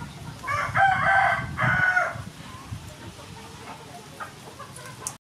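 A rooster crows once, a pitched call of about a second and a half near the start. Faint snips of kitchen scissors cutting through a fish follow.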